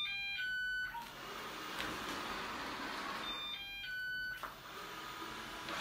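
Cecotec Conga robot vacuum running with a steady whirr. Twice it plays a short series of electronic beeps at stepped pitches: once right at the start and again about three and a half seconds in, its running noise dropping away while each series sounds.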